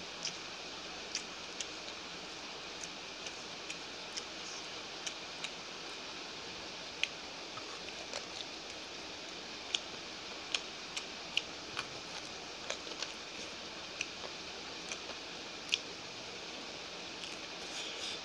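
A person eating rice and meat by hand: irregular short, sharp clicks and wet smacks of chewing and of fingers working the food, about one or two a second, over a steady hiss.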